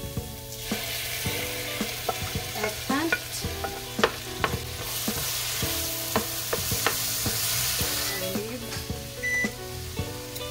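Diced vegetables and ground beef sizzling in a frying pan while a wooden spatula scrapes and taps against the pan as it stirs in mashed eggplant. The sizzle grows louder for a few seconds about halfway through.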